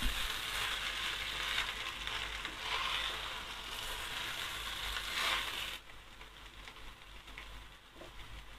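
A slotted spatula stirs and turns cooked prawn biryani rice in a nonstick pot over low heat, scraping through the rice while it sizzles lightly. The sizzling and scraping drop away sharply about six seconds in.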